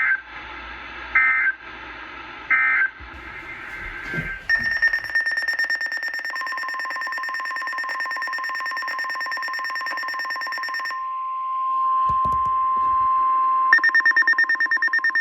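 NOAA Weather Radio alert signals: three short bursts of warbling EAS/SAME digital data tones, then a steady 1050 Hz warning alert tone. From about four seconds in a loud, rapidly pulsing electronic beep runs over the alert tone. The beep stops at about eleven seconds, leaving the steady tone alone, and comes back near the end.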